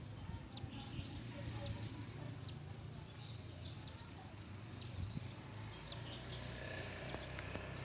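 Small birds chirping in short, scattered high calls, over a faint steady low hum.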